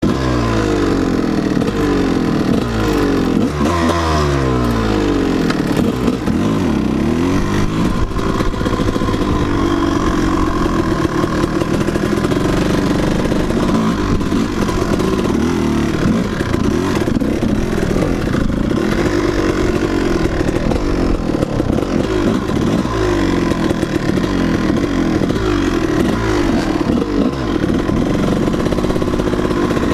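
Dirt bike engine running close and loud, its pitch rising and falling again and again as the throttle opens and closes and the rider shifts gears on a rough trail.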